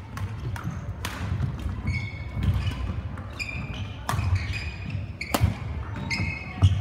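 Sound of a badminton hall: a few sharp racket strikes on shuttlecocks at irregular intervals, several short high squeaks of court shoes on the floor, and a low rumble of footfalls, echoing in the large hall.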